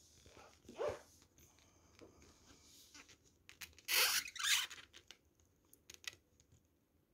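Hands sliding and handling a small model hot air engine on a plastic-covered tablecloth: a short squeak about a second in, a louder rustling scrape around four seconds in, then a few light clicks.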